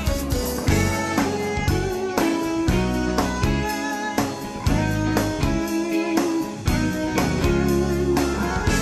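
Background music led by guitar, with a drum beat.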